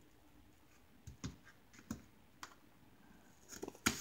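A few light clicks and taps at irregular intervals, from things being handled at a kitchen counter, with a small cluster of them near the end.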